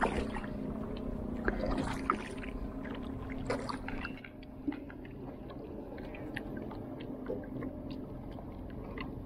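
Water splashing and lapping around a small wooden canoe as a paddle is worked, with a few light knocks. About four seconds in it drops to a softer, steady water sound with small clicks.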